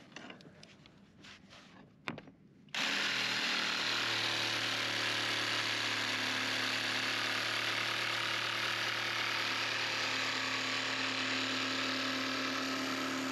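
Handheld electric power tool switched on about three seconds in and running steadily for about ten seconds: a motor hum under a steady hiss. A single sharp click comes just before it starts.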